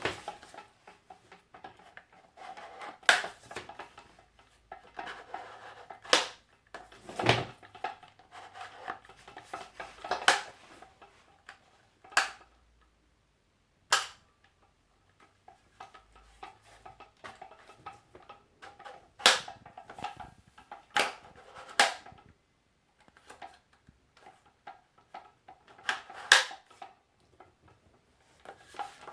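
Handling noise from unboxing an angle grinder and its parts: about ten sharp knocks and clicks at irregular intervals as pieces are picked up, set down and fitted, with rustling between. One heavier thud comes about seven seconds in.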